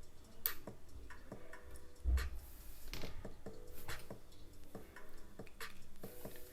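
Irregular small clicks and light metallic clinks of tweezers handling tiny brass and steel lock pins, spool drivers and springs taken out of a pin-tumbler padlock, some clinks briefly ringing, with a soft bump about two seconds in.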